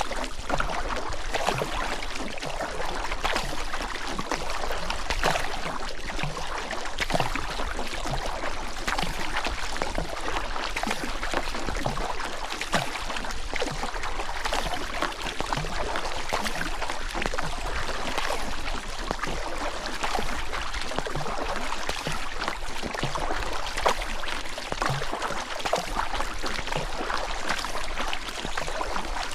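Goat River's water running and splashing steadily, a dense rush full of small splashes.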